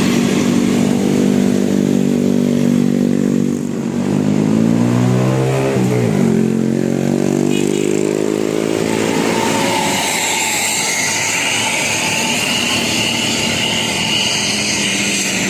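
A motor vehicle's engine running loud and steady, its pitch dropping and then climbing again a few seconds in, as with a change of revs. Later the deep engine note fades, leaving a higher, wavering sound.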